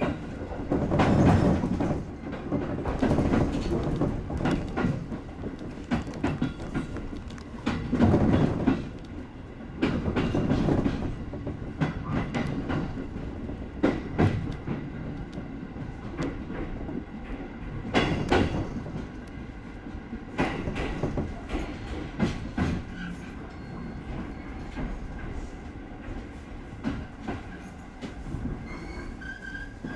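Wheels of a JR 205-series electric train clattering over points and rail joints, heard from inside the driver's cab as the train slows into a terminus platform; the knocks grow sparser and quieter as it nears a stop. A brief high squeal comes near the end.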